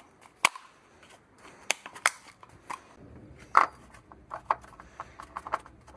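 Irregular sharp clicks and light knocks of objects being handled, most likely the improvised funnel and the oil container, with a faint low hum starting about halfway through.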